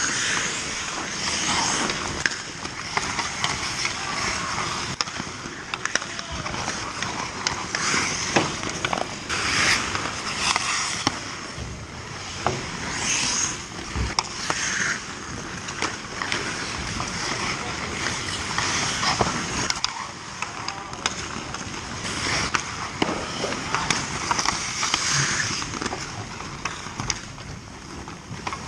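Ice hockey skates scraping and carving the ice in repeated strokes, with sharp clacks of sticks and puck, and a heavy thump about halfway through.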